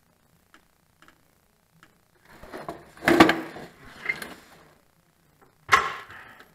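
A backhoe's main hydraulic pump being worked up into place: heavy metal parts scrape and clunk against each other for a couple of seconds, then one sharp metallic clank rings out near the end.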